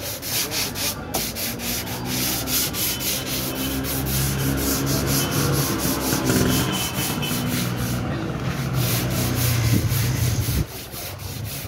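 Sandpaper held in the hand, dry-sanding cured body filler on a car body panel in quick, regular back-and-forth strokes. A low droning hum runs underneath and cuts off abruptly near the end.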